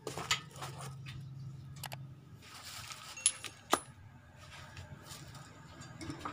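Small steel swingarm bushings clinking as they are handled and set against the swingarm's pivot: scattered light metal clicks, the sharpest a little over three and a half seconds in.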